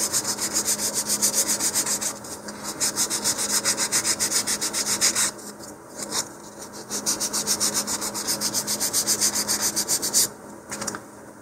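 A model rocket fin's edge being sanded on 150-grit sandpaper on a hand sanding tee: quick back-and-forth scratchy strokes, several a second, in three runs with two short breaks, rounding the fin's edge.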